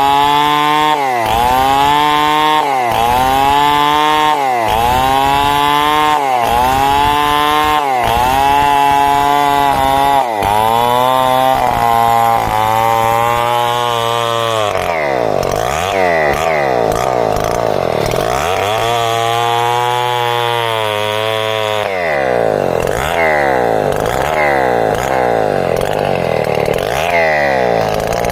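Two-stroke chainsaw ripping timber into boards, running at high revs. Its pitch dips and recovers every second or two as the chain bites into the wood, and the pattern turns more irregular about halfway through.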